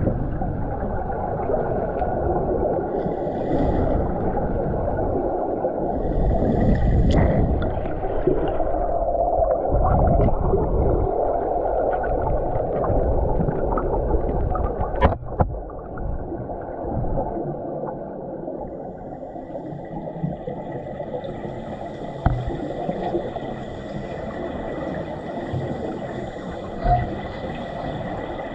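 Muffled underwater pool ambience picked up by a submerged camera: a dense, low rushing rumble of water, louder in the first half and easing off later, with a few sharp clicks and a faint steady high whine coming in during the second half.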